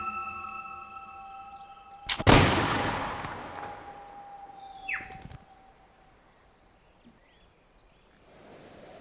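A single musket shot about two seconds in, echoing and dying away over roughly two seconds, over held music tones that fade out. A short falling bird-like whistle follows around five seconds in, then faint bird chirps.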